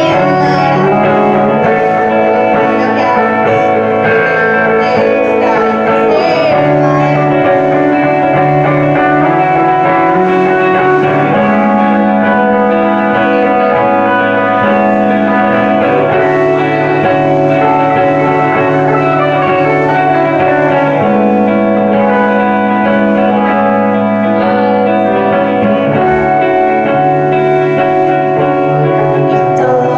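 Live band music: electric guitar playing an instrumental passage over the band.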